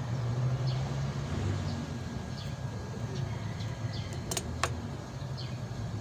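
A low steady rumble with short, high, falling bird chirps now and then. Two sharp clicks come in quick succession about two-thirds of the way in.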